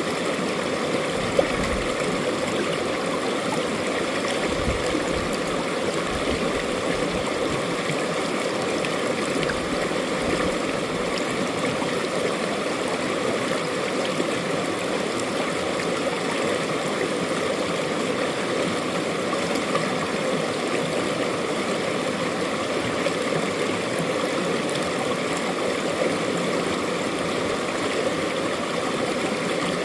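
Mountain valley stream flowing, a steady even rush of running water.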